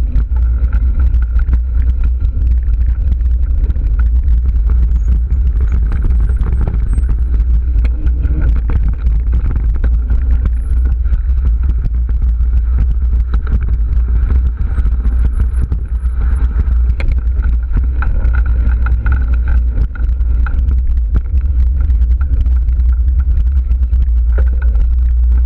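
Mountain bike riding over dirt singletrack: a steady low rumble of wind buffeting the microphone, with rattles and knocks from the bike jolting over the rough trail.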